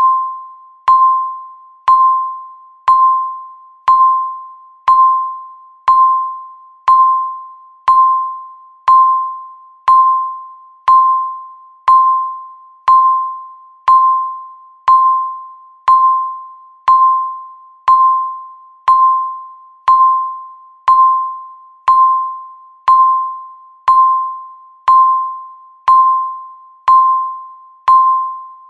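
Countdown timer beeps: one clear mid-pitched electronic tone struck once every second, each fading away before the next, marking the seconds left.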